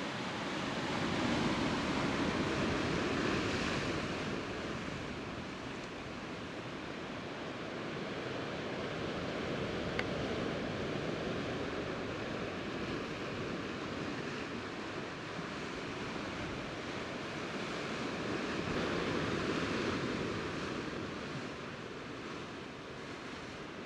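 Sea waves surging and washing over shore rocks: a steady wash that swells louder about a second in and again near the end. A single sharp click is heard near the middle.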